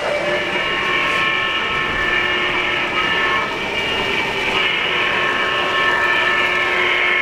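A model train's electronic sound system sounds a long multi-note horn chime over the running noise of the layout. Some of the notes drop out briefly midway and then come back.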